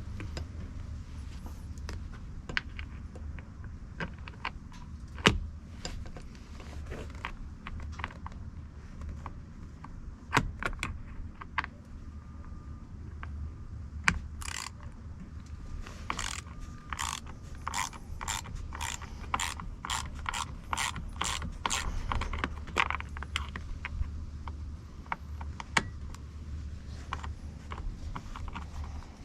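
Ratcheting driver with a T25 Torx bit clicking as trim screws are backed out. There are scattered clicks and knocks at first, then a steady run of about three clicks a second through the middle, over a low steady hum.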